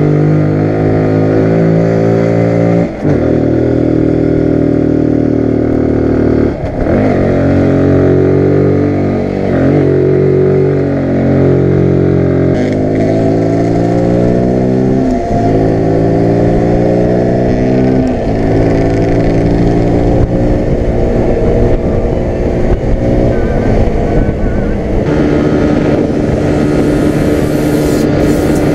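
Zontes G1 125 single-cylinder motorcycle engine accelerating hard through the gears. Its pitch climbs within each gear and drops at each of about five upshifts. Near the end it holds a steady high pitch at speed in top gear.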